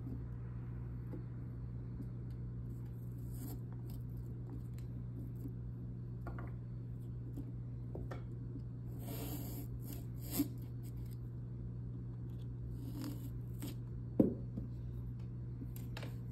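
Small serrated knife sawing and scraping through a pumpkin's rind in short, irregular cuts, with two sharp clicks, one about ten seconds in and a louder one a few seconds later. A steady low hum runs underneath.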